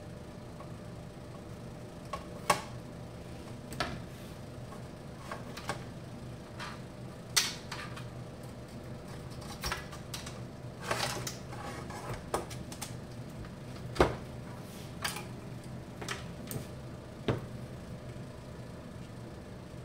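Irregular clicks and knocks of small metal and plastic parts being handled: a tourniquet machine's wire connectors and solenoid valve block. They come a dozen or so times, a few sharper than the rest, over a steady low hum.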